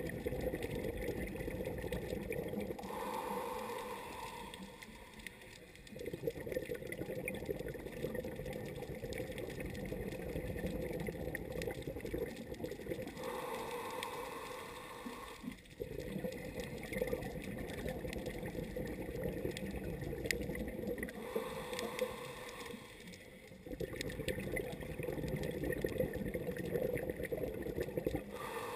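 Scuba breathing through a regulator, heard underwater: long gurgling rushes of exhaled bubbles, broken three times, about every eight to nine seconds, by a shorter, steadier hiss of an inhale through the regulator.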